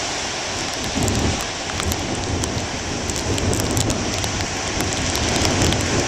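Heavy storm surf breaking on a rocky shore: a steady rush of churning whitewater that swells louder with crashing waves about a second in and again near the end, with fine high crackles throughout.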